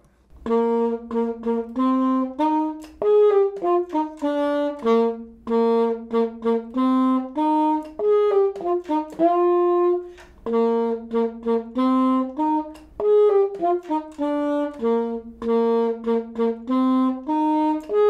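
Alto saxophone playing a simple melody of separate notes, with short pauses between phrases about eight and thirteen seconds in.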